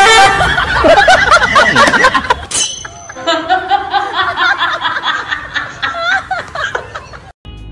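People laughing and snickering, loud for the first couple of seconds, then softer, cutting off abruptly near the end.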